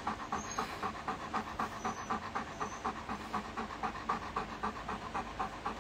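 Dog panting steadily and quickly, about five breaths a second: a dog cooling itself in the heat.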